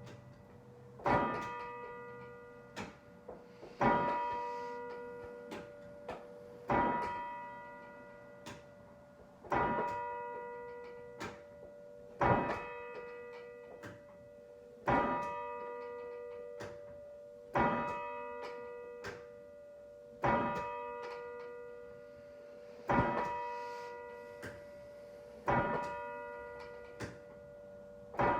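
A single church bell tolling slowly for the dead, one stroke about every two and a half to three seconds, about ten strokes in all. Each stroke rings on and fades before the next, and a faint knock falls between strokes.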